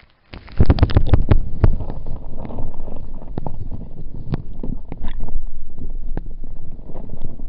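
Water churning and knocking against a submerged camera housing as a hand moves a rock bass in front of the lens: a muffled rushing noise with many scattered clicks and thumps that starts suddenly about half a second in.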